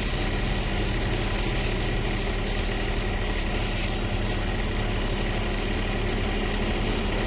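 Steady hum of a running engine-driven welding set under an even, continuous hiss, as stick welding of the steel pipe's root pass goes on.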